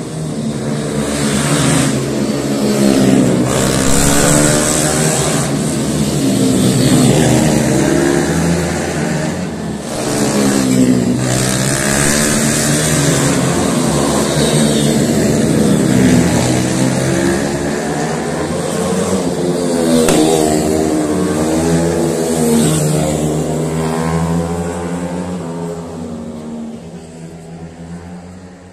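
Racing motorcycle engines passing one after another, revving up and down as they go through the gears. The sound fades away near the end.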